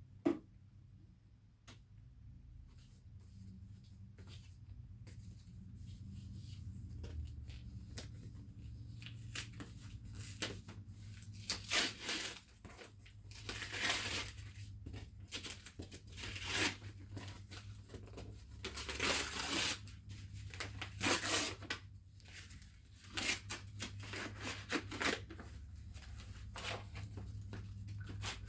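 A package being torn open by hand: scattered rips and crinkles of packaging, sparse at first and coming thick and fast from about a third of the way in.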